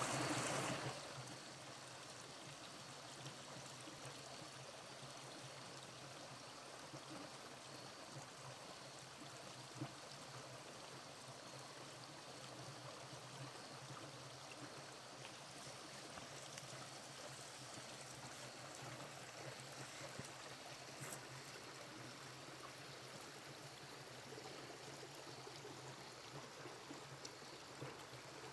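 Shallow, rocky woodland creek trickling and gurgling over stones in a faint, steady wash. A louder rush of noise comes in the first second.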